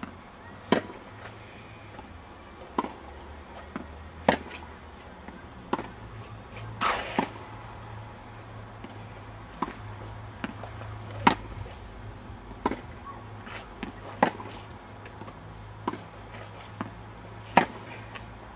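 Tennis balls being struck with racquets and bouncing on the court: sharp hits, about one every one to two seconds, over a low steady hum.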